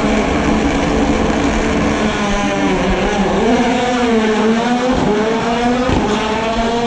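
A rally car's engine running hard at high revs, its pitch rising and falling several times with the throttle.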